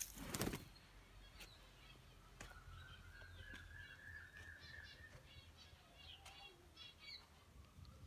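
Faint, quick bird chirps over near silence, with a short noisy burst about half a second in and a thin, steady high tone in the middle.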